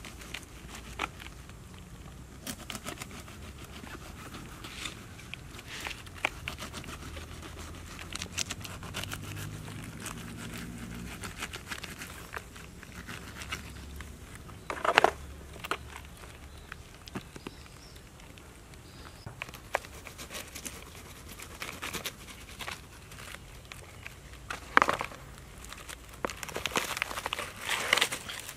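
Blade cutting into the rind and flesh of a whole jackfruit: scattered small crunches and clicks, with two louder cuts about halfway and a few seconds before the end. Near the end a dense crackling and tearing as the split fruit is pried open by hand.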